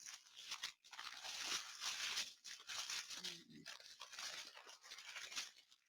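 Small plastic bags of diamond-painting drills crinkling and rustling faintly as they are handled and sorted.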